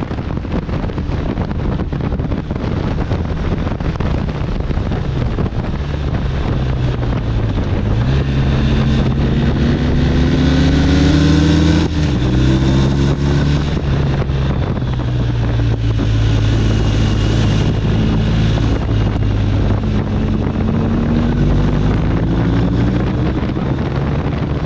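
BMW R1250 RT's boxer twin engine under way, its pitch climbing steadily for several seconds, dropping sharply about halfway through, then holding fairly even. Heavy wind rush on the microphone all the while.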